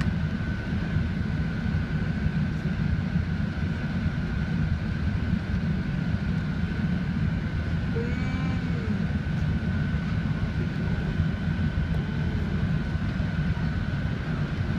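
Steady cabin noise inside an Airbus A380 descending on approach: a low rumble of engines and airflow with one constant high whine over it.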